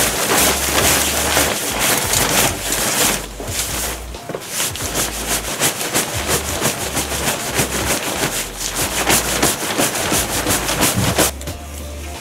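Nylon-type bicycle cover fabric rustling and crinkling as it is pulled and settled over a bicycle, with intermittent wind rumble on the microphone. The rustling drops away about a second before the end.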